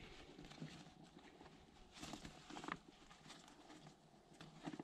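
Near silence, with faint rustles and a few light clicks from the fabric seed bag of an Earthway spreader being handled at its opening. The rustles are slightly louder about two seconds in and again near the end.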